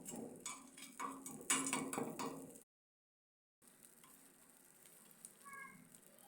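Borax being heated in a pan: a quick run of irregular clicks and crackles that stops abruptly about two and a half seconds in, then only a faint hiss.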